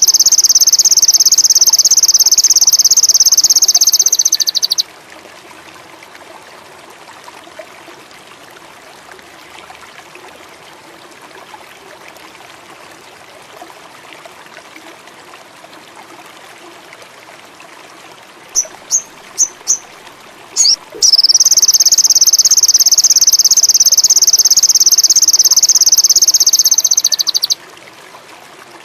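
A small songbird, the sogon, singing a long, very fast, high buzzing trill twice, each lasting several seconds, with a few short sharp chirps just before the second trill. A steady trickle of running water underneath.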